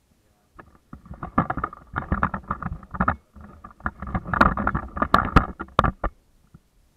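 Fake-fur coat rubbing and brushing against the camera's microphone: irregular scuffing with many sharp clicks, loudest about four to five seconds in, then dying away near the end.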